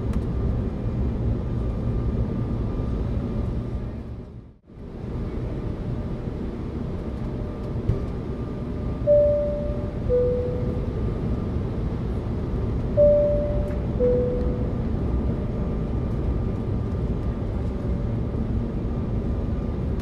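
Airliner cabin noise, a steady low drone, with the fasten-seat-belt sign chime sounding twice in the second half, about four seconds apart: each a two-note ding-dong, high then low, fading after each note. A little before the middle the drone drops out briefly and comes back.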